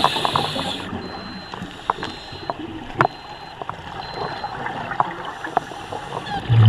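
Water sloshing and splashing, with scattered sharp clicks and knocks.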